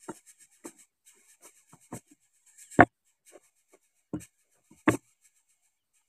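Irregular knocks and scratchy rustles of dry nest grass as a greater coucal moves in its nest right up against the microphone, the two loudest about three and five seconds in. A faint, fast high ticking runs underneath.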